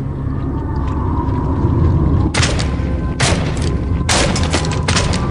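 Cartoon sound effects: a steady low rumbling drone, with four short, sharp hissing hits starting about two seconds in, roughly one a second.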